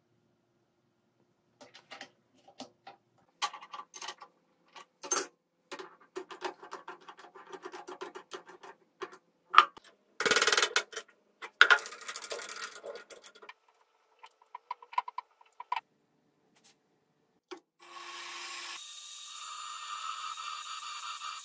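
Metal clatter and scraping as a steel block is set in a machine vise, with sharp knocks around ten seconds in as it is tapped down with a copper mallet. Near the end the milling machine's spindle motor starts and runs steadily with a whine as the drill bit goes into the block.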